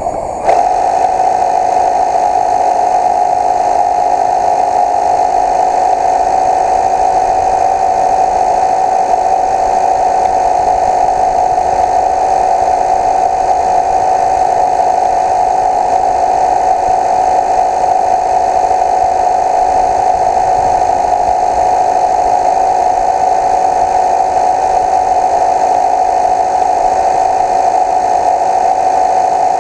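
Steady electric-motor hum from the radio-controlled Windmill Boat driving out across the lake, holding one even pitch after it cuts in about half a second in.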